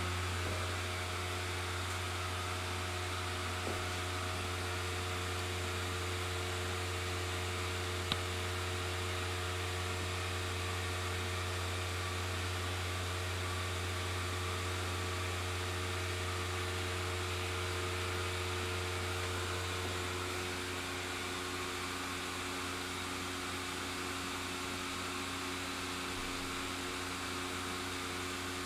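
Blower fan of an inflatable lawn decoration running steadily, a constant mechanical hum with a few steady tones. The hum shifts slightly about twenty seconds in, and there is a single click about eight seconds in.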